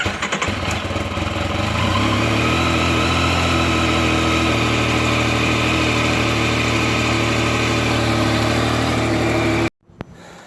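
Yamaha FJ-09's three-cylinder engine being started: a brief rattle of cranking, then the engine catches and settles into a steady idle within about two seconds. The sound cuts off abruptly near the end.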